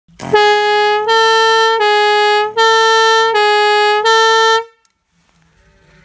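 Electric compressor-driven two-tone air horn, a pair of trumpets alternating between two close notes, each held about 0.7 s, six notes in all, then cutting off about four and a half seconds in. This first horn set gives a tone pair the owner finds wrong for a 1980s British police two-tone.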